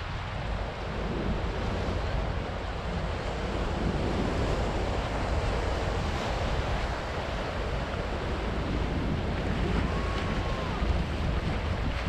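Ocean surf breaking over rocks and washing up a sand beach, a continuous rushing wash that swells a few seconds in. Wind buffets the microphone as a low rumble underneath, and a faint short whistle-like call sounds once near the end.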